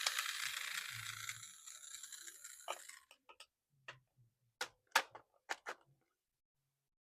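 Crinkling of packaging for about three seconds, then a run of separate sharp plastic clicks and taps as a toy RC car is unboxed and handled.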